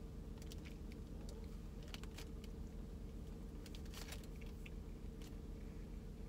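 A person chewing a homemade chocolate chip cookie, with scattered small crunches and mouth clicks over a steady low hum.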